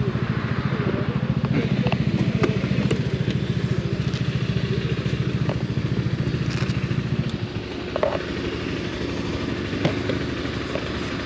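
A motorcycle engine idling with a fast, even pulse, which cuts out about seven seconds in, leaving a quieter hum. Short clicks and knocks come from the bike's top case being opened and handled.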